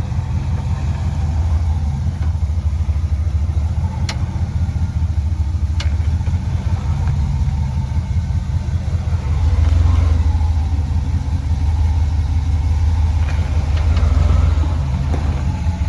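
Jeep engine running at low revs as it crawls over rock, rising in level twice, about ten seconds in and again near the end, with a couple of sharp knocks along the way.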